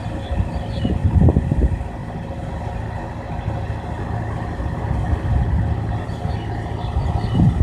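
Kobelco excavator's diesel engine running steadily, with heavier low surges about a second in and again near the end.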